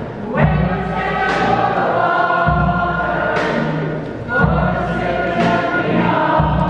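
A choir of voices singing held notes in long phrases, a new phrase starting just after the start and again about four seconds in.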